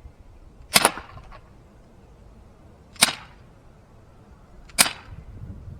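Umarex Glock 19 CO2 BB pistol fired three times, about two seconds apart, each shot a sharp pop.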